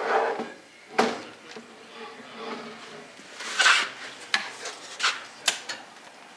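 Handling noises on a workbench: a few sharp clicks and knocks and one louder scraping rub a little after three and a half seconds in.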